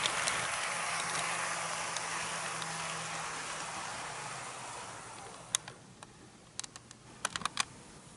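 HO-scale model trains running on Kato Unitrack: a steady rolling hiss of wheels on rail with a faint motor hum, fading away over the first five seconds. In the last three seconds come several sharp clicks from the track.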